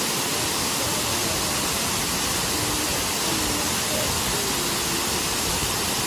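Waterfall cascading over wide rock ledges into a pool: a steady, even rush of falling water.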